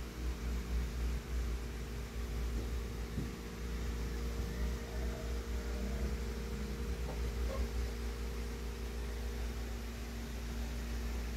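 Steady background hiss with a low rumble and a constant electrical-sounding hum, like a fan or air-conditioning unit running in the room.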